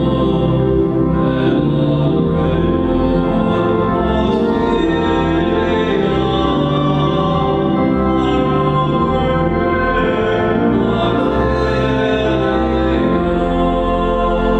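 Slow sacred music of long, held chords.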